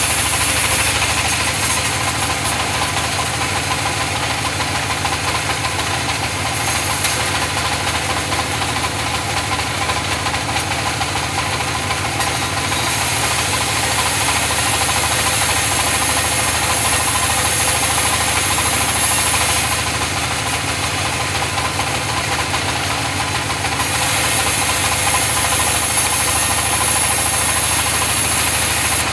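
Engine-driven sawmill running steadily while sawing mahogany, with a low engine hum and a high hiss that comes and goes several times.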